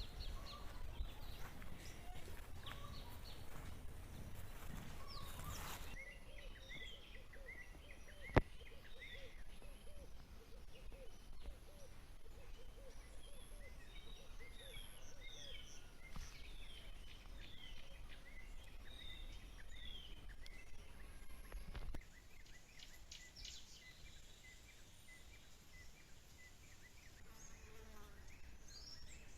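Outdoor ambience with small birds chirping repeatedly over a steady background hiss. A single sharp click comes about eight seconds in, and the background changes abruptly twice.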